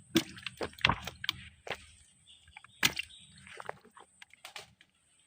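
Irregular splashes and slaps in shallow water, several sharp ones in the first three seconds and fainter ones after.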